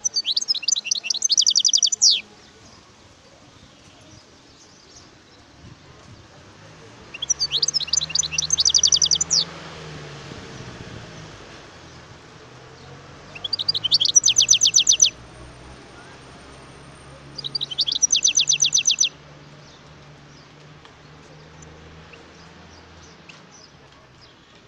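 European goldfinch singing in four short bursts of rapid, evenly repeated high trilled notes, separated by pauses of a few seconds.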